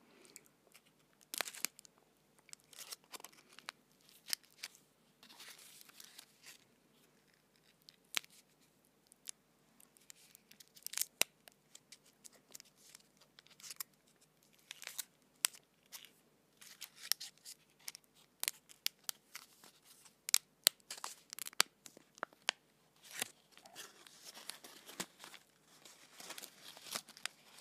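Paper and foil wrapper of a stick of chewing gum being torn and unwrapped right at the microphone: irregular crinkling rustles and many sharp crackles.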